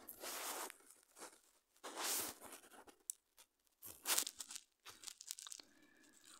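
Quiet, irregular bursts of rustling, crinkling noise, several in a row, each lasting a fraction of a second.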